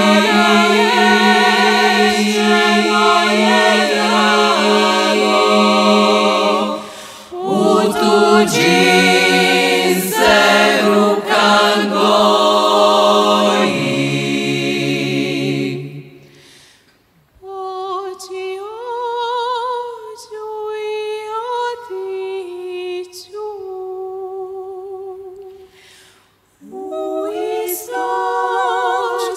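Women's klapa singing a cappella in close harmony, a Dalmatian folk song in several parts over a sustained low voice. About halfway through the full chord breaks off, and a lighter passage with fewer voices follows. The full group comes back in near the end.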